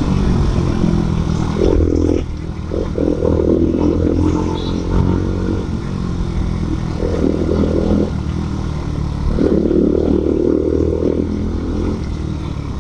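Bajaj Pulsar NS125 single-cylinder engine through an SC aftermarket exhaust, ridden slowly with the throttle opened in several short spurts. The exhaust note swells and drops back between them.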